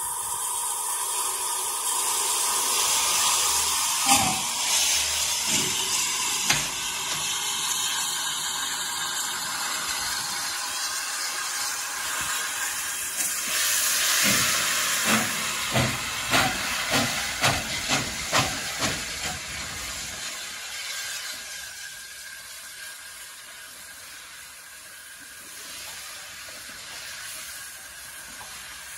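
Saddle-tank steam locomotive hissing steam from its cylinders as it pulls away, its exhaust beats coming through at about two a second around the middle before fading. The train's coaches then roll past more quietly.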